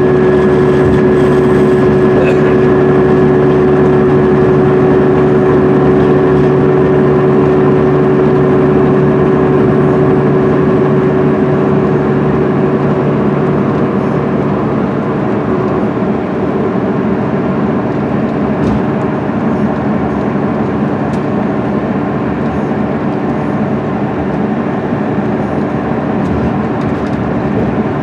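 Inside an MCI D4500CL coach cruising on the highway: the Cummins ISM diesel and Allison transmission drone steadily under tyre and road noise, holding one even pitch. The drone eases a little about halfway through.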